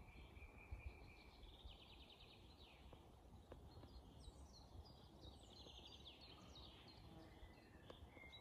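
Faint songs of several woodland birds: a held whistle near the start, then two runs of rapid trilled notes and short downward-sliding notes in between, over a low rumble.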